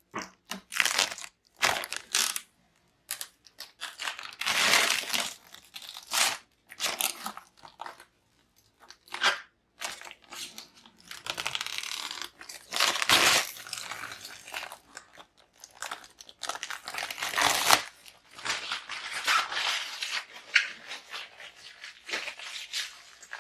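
Close handling noises of computer parts: irregular crinkling, crunching and tearing rustles of plastic and cables, with occasional clicks.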